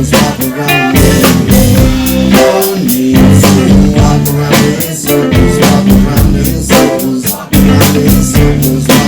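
Live band playing loudly with no singing: drum kit keeping a steady beat over a heavy bass line and guitar.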